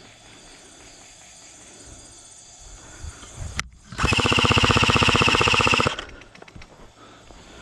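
Airsoft gun firing one full-auto burst of about two seconds, about four seconds in: a rapid, even rattle of shots over a steady high whine, stopping abruptly.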